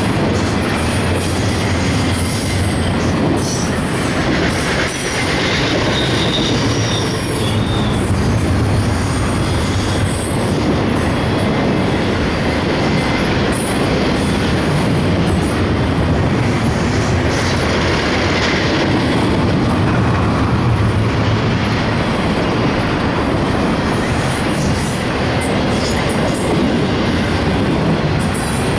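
Intermodal freight train rolling past at close range: steady wheel-on-rail rumble and clatter, with wheels squealing on and off.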